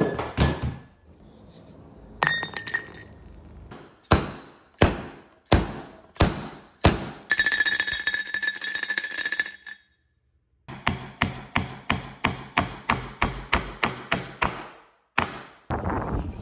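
Thick glass beaker bong clinking and ringing under a long run of sharp knocks. Some strikes leave a clear glass ring, and one ring is held for a couple of seconds about halfway through. A quick, even series of taps, about three a second, follows near the end.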